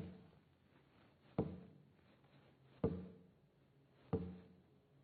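Heartbeat sound: four low thumps at a slow, even pace, a little under a second and a half apart, each dying away with a short ring.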